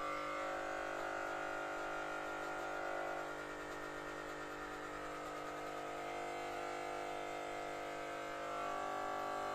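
Corded electric hair clippers buzzing steadily as they cut close to the scalp on the back and sides of the head for a skin fade. The buzz drops a little in level about three seconds in and comes back up near the end.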